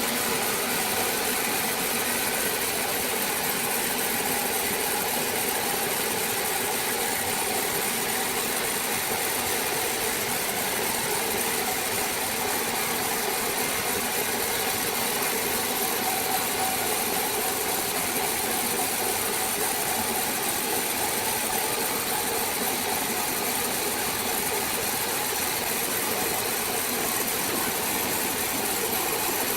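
A power saw running steadily, an even mechanical noise with faint steady tones and no pauses or changes.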